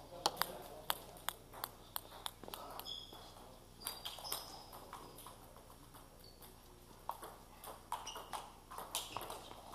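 Table tennis balls clicking sharply off tables and bats: a run of pings about three a second in the first couple of seconds, a quieter stretch, then more pings near the end as play resumes.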